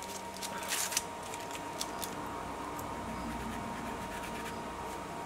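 Paper scratching and rustling as hands rub and lift a glued, newspaper-covered card on a non-stick craft sheet. The loudest scratch comes about a second in, followed by a few light taps and rustles.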